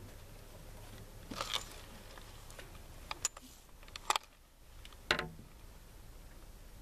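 Scattered light clicks and knocks in a small riveted boat, a handful spread through the few seconds, the loudest about five seconds in.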